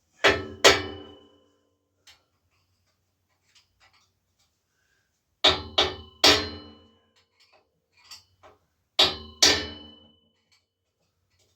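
Hammer blows on a seized bicycle bottom bracket: seven sharp metal-on-metal strikes in groups of two and three, each ringing briefly. The part is tight and does not move.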